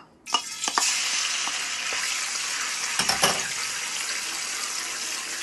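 Ginger-garlic paste sizzling loudly as it drops into hot oil in a metal pan, starting about a third of a second in, while a wooden spoon stirs it with a few knocks on the pan.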